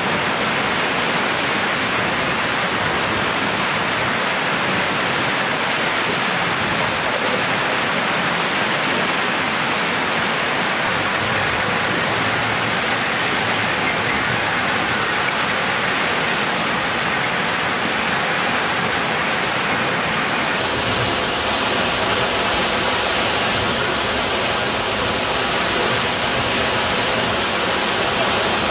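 Steady loud rush of churning water from an artificial wave pool's breaking waves. The sound shifts suddenly about twenty seconds in, becoming deeper with less hiss.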